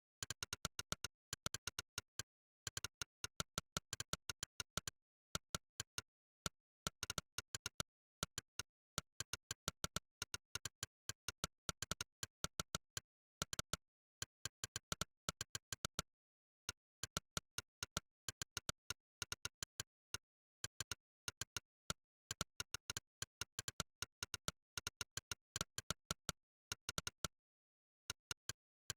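Monkeytype's synthetic 'click' keypress sound effect, one sharp digital click per keystroke, in fast uneven runs of typing broken by short pauses, with dead silence between clicks.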